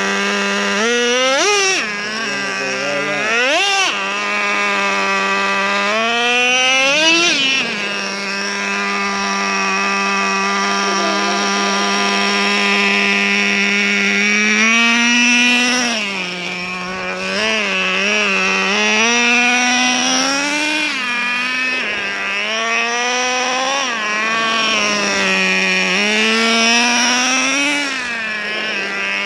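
Traxxas Revo 3.3's TRX 3.3 two-stroke nitro engine running at a steady idle, broken by repeated throttle blips that raise and drop its pitch, several of them in a row in the second half. The engine is fresh and being broken in.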